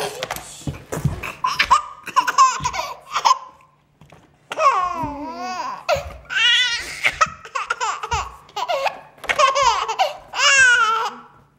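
Baby laughing hard in repeated bursts of high, squealing giggles that rise and fall in pitch, with a brief pause about four seconds in and a few soft thumps between laughs.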